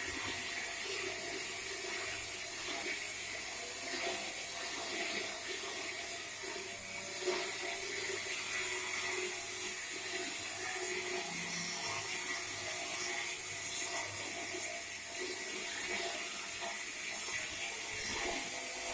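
Electric plate rolling machine running steadily, its motor, belt, gearbox and chain drive turning the rolls as a steel plate is bent into a cylinder. One short knock about seven seconds in.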